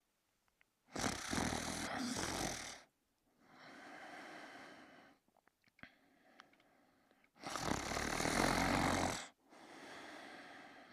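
A sleeper snoring: two loud, rasping snores about six seconds apart, each followed by a quieter breath.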